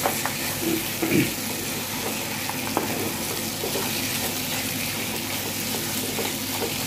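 Marinated chicken pieces sizzling steadily as they sear over high heat in a non-stick pan. A wooden spatula stirs them, knocking against the pan a few times.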